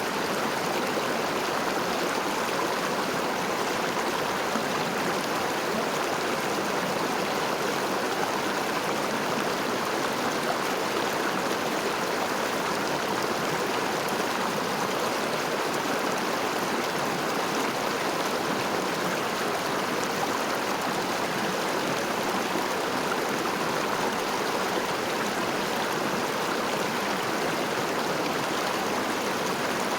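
River water flowing steadily over stones, an even rushing and gurgling with no changes.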